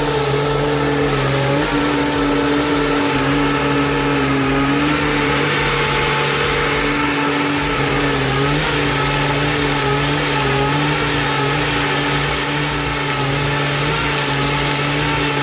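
Heavy log-handling machine's engine running steadily, its pitch dipping and rising slightly a few times.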